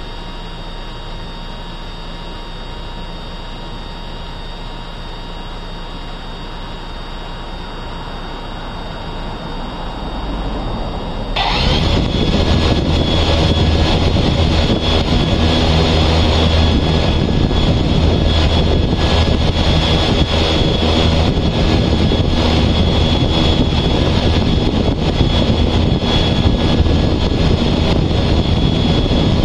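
A low steady hum, then about eleven seconds in a louder motor-vehicle engine sound with a strong low drone cuts in abruptly and runs on steadily.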